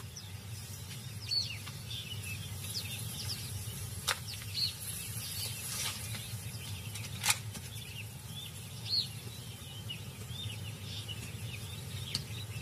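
Small birds chirping in short, scattered calls over a low steady rumble, with two sharp clicks about four and seven seconds in.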